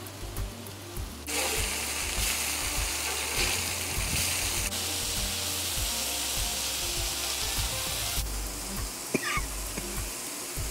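Chicken cutlets sizzling on the hot steel top of a Blackstone griddle, a steady hiss that grows louder about a second in and shifts abruptly twice. Background music with a deep bass line plays underneath.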